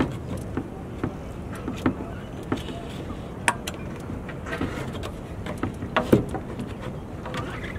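Scattered light knocks and clicks of hands handling a container and gear on a boat's deck, over a steady low outdoor background hum.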